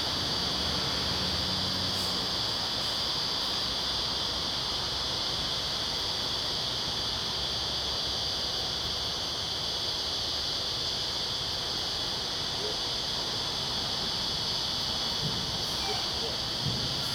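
Carniolan honeybees buzzing around an open hive, over a steady high-pitched hiss.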